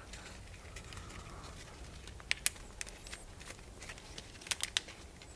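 Dry birch bark strips handled and pulled through a woven star: faint rustling with a few sharp crackles, two a little over two seconds in and a quick cluster of three near the end.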